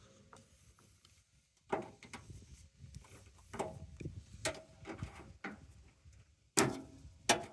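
Scattered clicks and knocks of washing-machine parts being handled and worked loose during a teardown, with the loudest knocks near the end.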